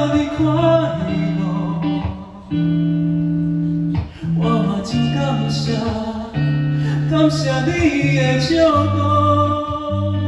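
Music: a guitar playing with a voice singing, over held bass notes that change every second or two. It drops out briefly about two seconds in and again about four seconds in.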